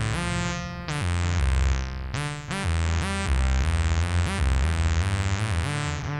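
Studiologic Sledge polyphonic synthesizer playing a sequenced pattern on a randomized patch: a run of bright, buzzy notes whose tone darkens quickly after each attack as the filter closes, over a pulsing bass line.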